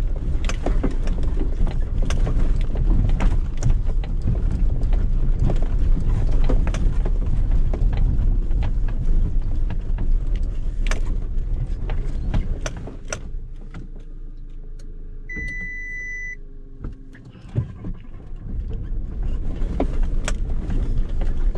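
Cabin noise of a 2013 Suzuki Jimny SZ4 with its 1.3-litre inline-four, driven slowly over a rough, rutted track: low engine hum with frequent knocks and rattles from the body and interior. About two-thirds through the noise drops away for a few seconds, a short high beep sounds once, and after a thump the rattling comes back near the end.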